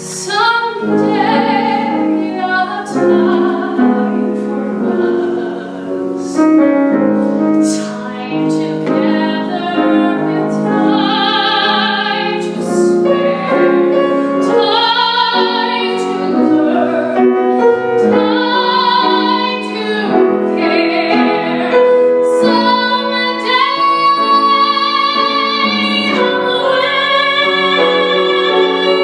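Female voices singing a slow musical-theatre ballad duet with vibrato on long held notes, accompanied by piano.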